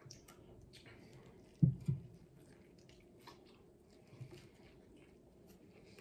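Close-up chewing of a hamburger: soft wet mouth clicks and squishes throughout, with two low thumps close together about a second and a half in.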